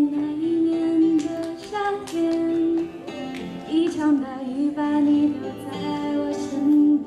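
A woman singing a slow song into a microphone, with long held notes and slides between them, over an instrumental accompaniment.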